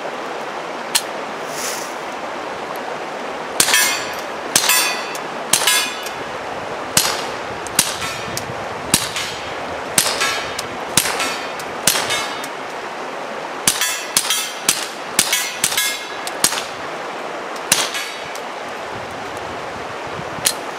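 Taurus TX22 .22 LR pistol fired through a fuel-filter suppressor: a string of more than a dozen shots, each a sharp crack with a short echo after, spaced about half a second to a second and a half apart. The ammunition is not subsonic, so the bullet's crack is still heard despite the suppressor.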